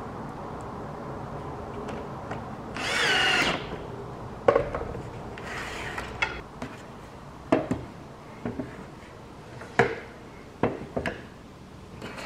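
A cordless drill-driver runs briefly about three seconds in, its whine wavering in pitch as it drives a screw through a metal folding-leg bracket into a wooden leg. The drill is then put down, and several sharp wooden knocks follow as the bracketed legs are handled and set down on the table.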